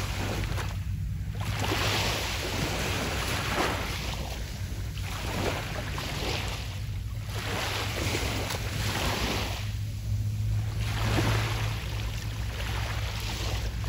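Waves breaking and washing up a beach, the noise swelling and ebbing about every two to three seconds, over a steady low rumble.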